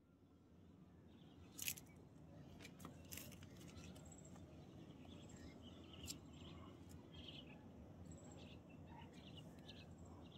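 Near silence: a faint outdoor background with scattered short, high chirps and small clicks, and one sharper click about a second and a half in.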